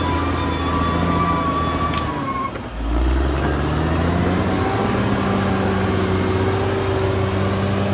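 Caterpillar D6R XL bulldozer's diesel engine running, with a steady high whine over it for the first couple of seconds. The sound dips about two and a half seconds in, then the engine pitch rises as it takes up work again.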